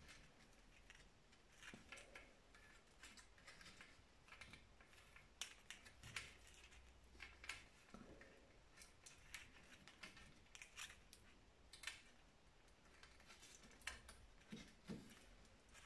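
Faint, irregular scratchy rasps of twine being drawn tight and wrapped around wooden slats, with light handling noise from the hands and wood.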